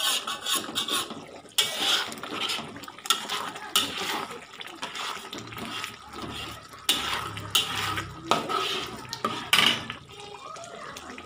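Metal spoon scraping and clinking against an aluminium wok as a thick sauce is stirred while it comes to the boil, in irregular strokes with several sharper clinks.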